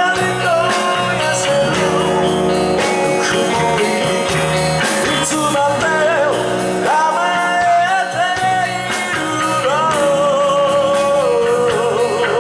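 Live rock and roll band playing at full volume: a sung lead vocal over electric guitars, bass guitar and a drum kit.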